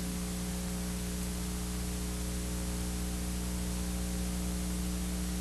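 Steady electrical mains hum with an even background hiss, unchanging throughout.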